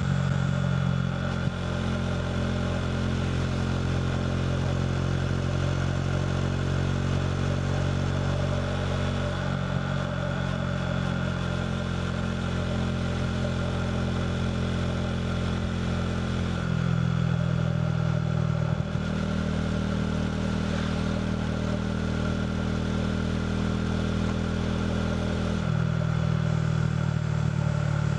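KTM RC 390's single-cylinder engine running through a Two Brothers slip-on exhaust while riding, holding fairly steady speeds. Its pitch shifts in a few distinct steps.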